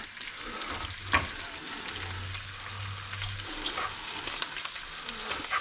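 Chopped bacon sizzling steadily in a frying pan over turned-down heat, rendering its fat before it is fully crisp. A single light click comes about a second in.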